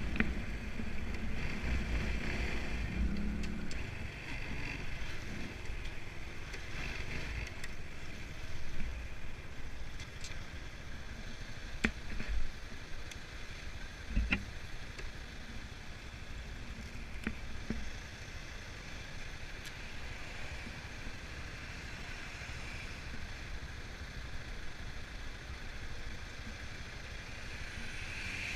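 Wind buffeting the bike-mounted camera's microphone over a small motorbike engine while riding, easing to a quieter steady engine and traffic hum once stopped in a traffic queue, with a few sharp clicks.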